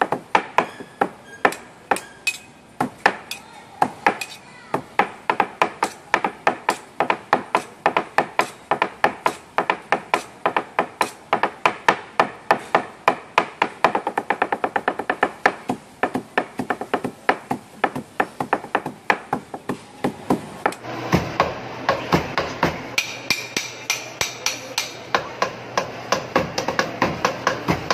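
Rapid, rhythmic chopping of sisig with cleavers on a chopping board, about four strokes a second, played as a drum-like beat. About three quarters of the way in, a denser layer of sound joins the strikes.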